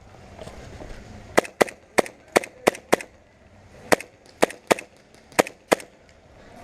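Airsoft guns firing single semi-automatic shots, about eleven sharp cracks in irregular pairs and triplets with short pauses between.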